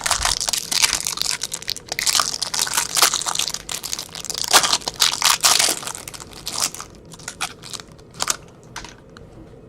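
Crinkling and crumpling of plastic or foil trading-card packaging handled by hand: dense crackling for about six seconds, then a few scattered crackles.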